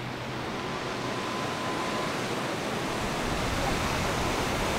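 A steady rushing noise, like running water or wind, growing gradually louder, with a faint thin tone in the first couple of seconds.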